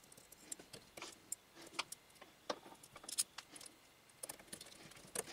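Irregular faint clicks and taps of small metal parts: a screw being undone and an air-assist fan mount fitted with a screwdriver onto a K40 laser engraver's metal laser head.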